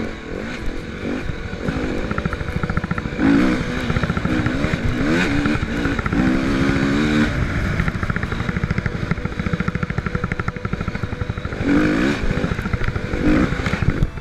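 KTM dirt bike engine revving hard as the bike accelerates along a dirt trail, its pitch climbing in bursts about three seconds in and again near the end, easing off between.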